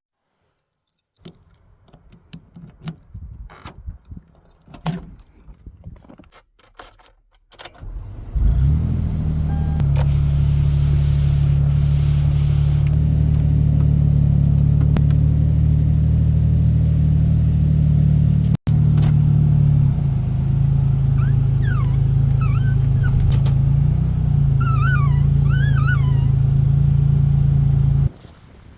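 Scattered knocks and handling noises, then about eight seconds in a car starts running with a loud, steady low drone that holds until just before the end, with a few short high squeaks near the end.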